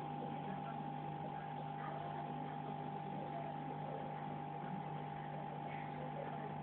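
Aquarium filter pump humming steadily, two constant tones over a faint hiss.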